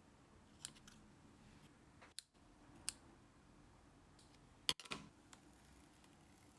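A handful of small, sharp clicks and snips from hand tools at craft work, about six in all and spaced irregularly, the loudest pair a little before the end.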